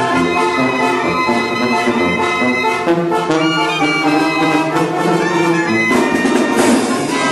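Mexican brass band (banda) playing: clarinets, trumpets, trombones and sousaphone over a steady bass drum beat.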